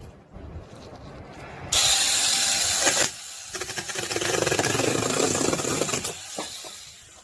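Mini chainsaw running in two bursts, cutting firewood: a short burst about two seconds in, then a longer one that fades out near the end.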